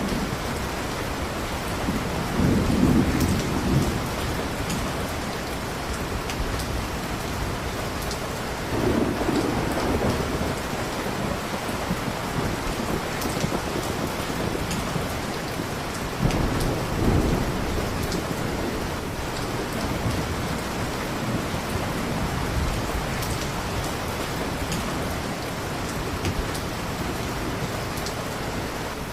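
Steady heavy rain, with three low rolls of thunder swelling and fading about every seven seconds.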